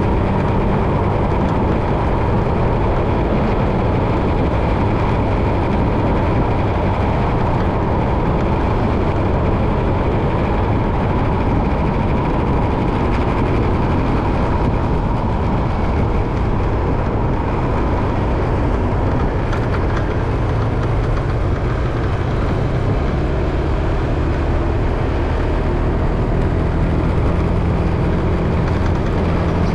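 Steady vehicle noise, as heard while travelling along a road: an unbroken engine and road rumble, heaviest in the low end, with no pauses or sudden events.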